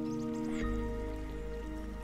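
Gentle background music of sustained held notes, with a few faint short high chirps and ticks in the first second.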